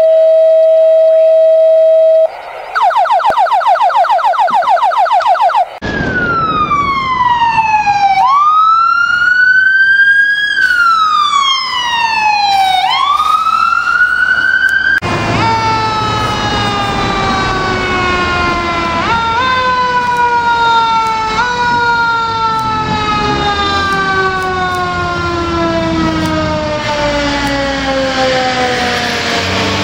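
A steady electronic beep for about two seconds, then emergency vehicle sirens from a passing ambulance and fire engine. A fast pulsing yelp is followed by slow wails that fall and sweep back up. Later a siren winds down in long falling tones, nudged back up twice, typical of a Federal Q mechanical siren, over the truck's engine.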